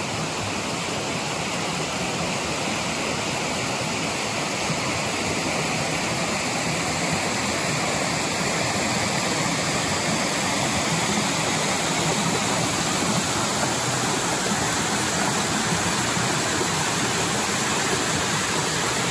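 Mountain brook cascades rushing over rock ledges: a steady, dense sound of falling water that gets a little louder as it goes.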